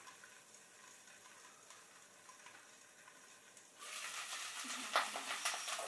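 Quiet room tone for nearly four seconds, then cabbage frying in garlic-flavoured oil in a frying pan comes in suddenly as a steady sizzle, with a few scrapes and taps of a spatula stirring it. The cabbage is about half-cooked.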